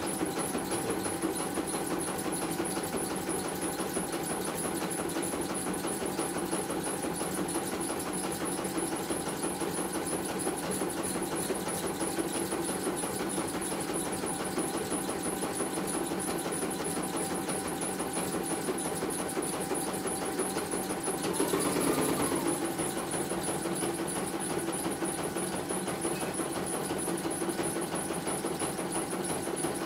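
CNY E900 computerized embroidery machine running and stitching a design: the needle mechanism works at a steady, fast rhythm. A brief louder swell with a gliding whirr comes about two-thirds of the way through.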